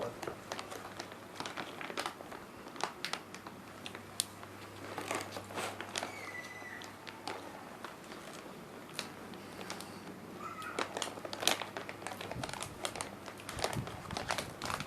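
Eating crunchy keripik chips close to the microphone: irregular crisp crunches and crackles from biting and chewing, with some crinkling.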